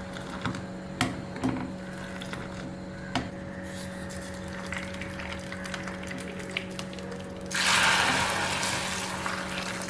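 A few light clicks over a steady low hum, then about seven and a half seconds in a sudden loud hiss as hot oil tempering with mustard seeds and curry leaves hits the soup, fading over about two seconds.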